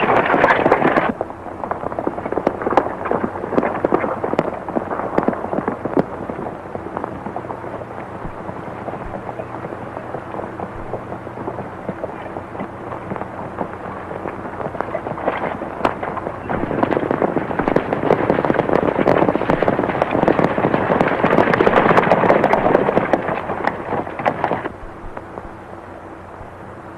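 Horse-drawn covered wagons rolling: a dense clatter of hooves and wagon wheels, through the crackle of an old film soundtrack. It is loud at first, softer for a while, swells again, and cuts off suddenly near the end.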